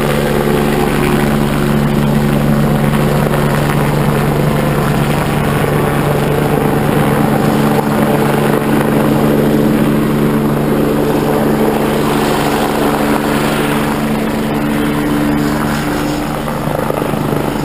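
Rescue helicopter hovering low, its rotor and turbine engine running steadily: a rapid regular beat of the rotor blades under a steady droning tone.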